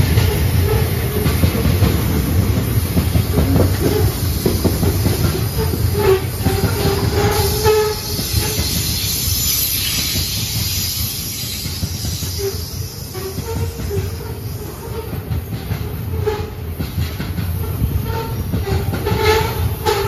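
Loaded grain hopper cars of a freight train rolling past: a steady rumble of wheels on the rails, with clicking and short, scattered squeals from the wheels. It gets a little quieter after about eight seconds.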